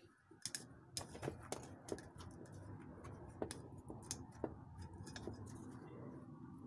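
Scattered light clicks and taps of the bullet mold and its pliers-style handles being worked with gloved hands, over a faint low background hum.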